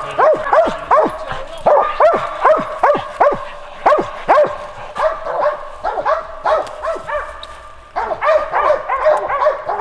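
Hunting dogs barking treed at the base of a tree, a quick steady chop of short barks, about two to three a second: the sign that they have a squirrel up the tree. The barking thins out around seven seconds in and picks up again about a second later.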